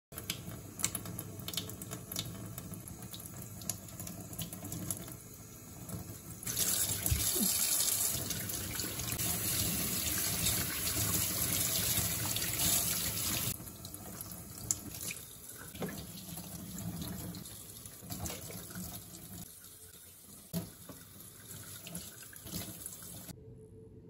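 Kitchen tap running into a stainless-steel sink while chanterelle mushrooms are rinsed by hand under the stream, with splashing and small knocks of handling. The flow gets much louder about a quarter of the way in and drops back a little past the middle.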